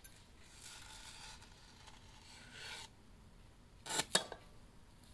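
Cotton-gloved hands rubbing and rustling as they handle a small item, then two sharp taps close together about four seconds in, as something is set down on the table.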